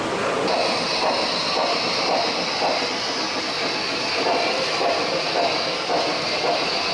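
Gauge 1 model train running past, its wheels rolling over the track with a steady rumble and soft repeated clicks. A steady high hiss sets in about half a second in.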